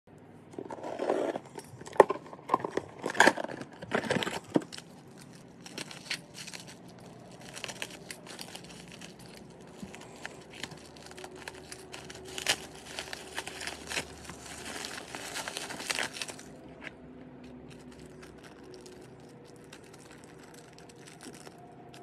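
A cardboard parcel box is torn open, with loud sharp rips and knocks in the first few seconds. Then plastic bubble wrap crinkles and rustles as a small package is unwrapped by hand, stopping about three-quarters of the way through.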